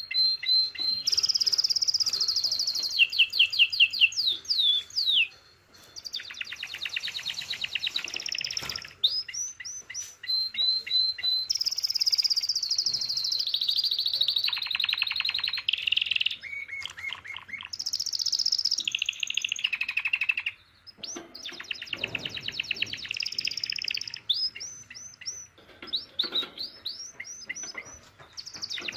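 Male canary singing loudly in breeding condition: long phrases of fast trills and rolls, with runs of repeated chirps. The song breaks off briefly twice.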